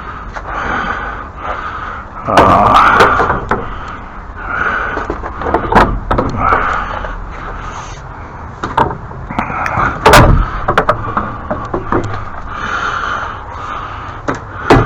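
Objects being handled and moved about by hand: irregular knocks, scrapes and bumps, with a louder scraping stretch a couple of seconds in and a sharp bang about ten seconds in.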